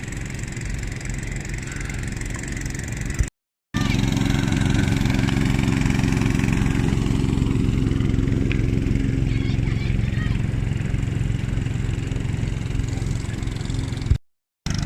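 Small raft motor running steadily at a low, even pitch, broken by two short silent gaps, about three seconds in and near the end.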